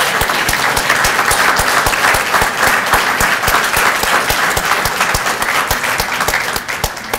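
Audience applause: dense, steady clapping with sharp claps close by at about three to four a second, dying away at the very end.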